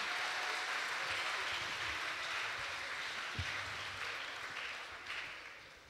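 Audience applauding, dying away near the end, with a single low thump about halfway through.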